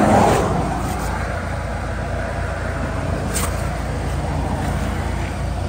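A vehicle engine idling with a steady low rumble. A brief rustling swell comes right at the start, and a short sharp click about three and a half seconds in.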